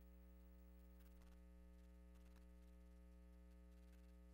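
Near silence with a faint, steady electrical mains hum, and a couple of faint ticks.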